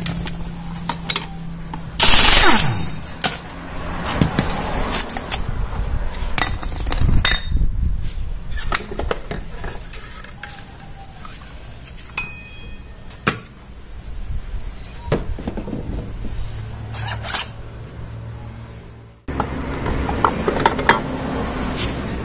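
Metal parts and hand tools clinking and knocking as a Honda Vario 150 scooter's CVT is taken apart, with a loud short burst that falls in pitch about two seconds in.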